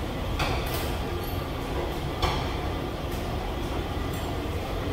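Long subway-station escalator running with a steady low rumble, with a few sharp clicks, the loudest just after two seconds in.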